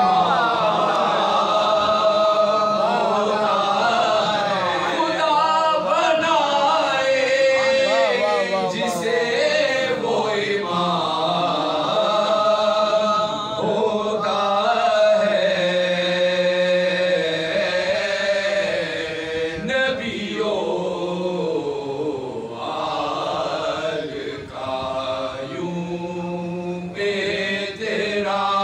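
Soz-khwani: a group of men singing a Shia salam, an elegy chanted unaccompanied. A lead voice is supported by the others, with long held notes and ornamented turns.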